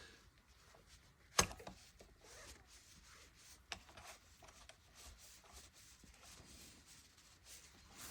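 Faint hand-handling noises of small metal parts and tools while a disc lock's mounting is adjusted: light rubbing and scattered clicks, with one sharp click about a second and a half in.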